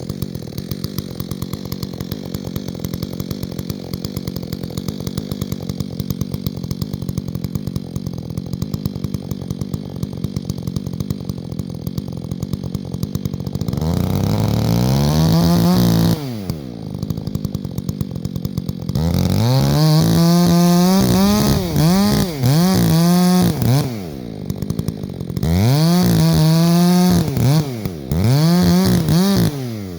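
Chainsaw engine idling with a steady rapid putter for about fourteen seconds, then throttled up five times. Each time the pitch sweeps up to a high steady whine, holds for one to two and a half seconds, and falls back to idle.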